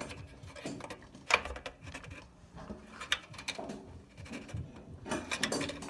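Scattered metal clicks, knocks and scrapes of an adjustable wrench being worked on the small go-kart engine.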